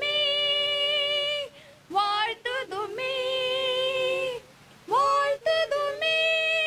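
A woman singing a slow song into a microphone, holding long steady notes with short breaks and quick slides between the lines.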